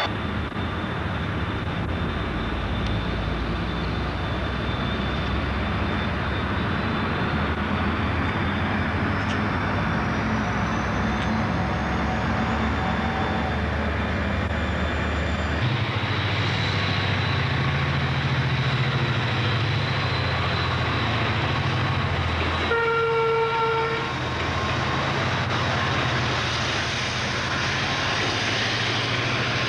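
Diesel locomotive engines running with a low, steady drone that changes note about 16 seconds in. A locomotive horn sounds once for a little over a second about 23 seconds in.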